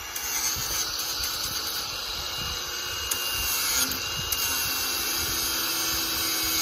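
Angle grinder grinding steel, a steady, even grinding noise that carries mostly in the highs.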